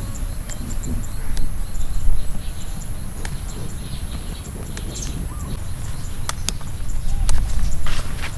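Green chili pods being snapped off a chili bush by hand: scattered sharp little clicks. Under them run a steady high-pitched whine and a low rumble, with a couple of faint bird chirps.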